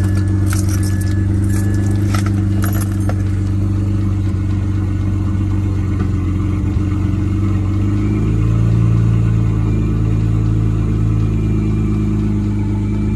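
BMW 335i's N54 twin-turbo straight-six idling steadily just after start-up, heard from inside the cabin, running smoothly on a freshly replaced fuel injector while being checked for leaks. A few light clicks in the first few seconds, and the idle note shifts about eight seconds in.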